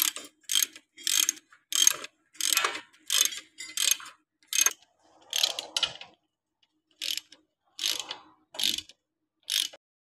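Socket ratchet wrench clicking in repeated short strokes as it turns a bolt through a steel bracket on a truck frame, about one to two strokes a second, with a brief pause about two-thirds of the way through.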